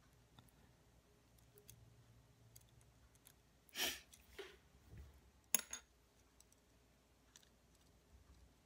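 Faint clicks and handling noises from small plastic drone parts and wires being worked by hand on a table. There is a short rustle about four seconds in and a sharp click about a second and a half later.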